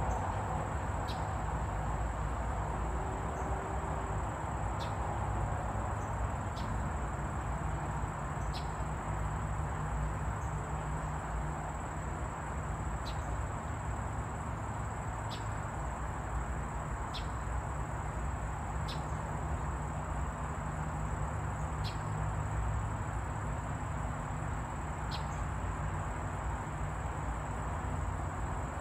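Outdoor background noise: a steady low rumble under a continuous thin high whine, with about ten short high chirps spaced one to four seconds apart.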